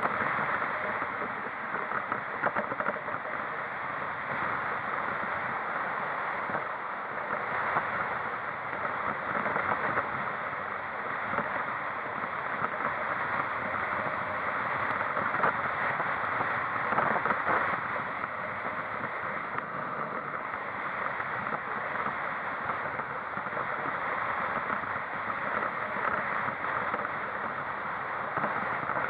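Steady rushing road and wind noise from a moving vehicle, even throughout, with no distinct engine note standing out.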